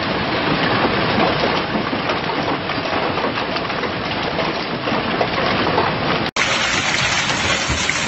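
Hail and heavy rain falling hard, a dense steady patter of countless small hits. It drops out for an instant about six seconds in, then goes on the same.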